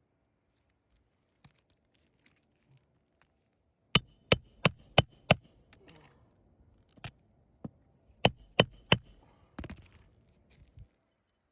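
Hammer blows on steel, each with a short high metallic ring: five quick strikes about four seconds in, two single blows, then three more quick strikes and a last one.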